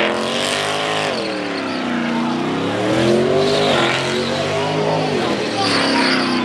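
A car engine revving hard, its pitch swinging up and down every couple of seconds as the throttle is worked through a slide, over the hiss of spinning, squealing tires.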